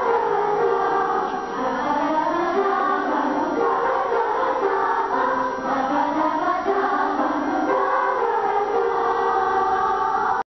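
Children's choir singing with piano accompaniment.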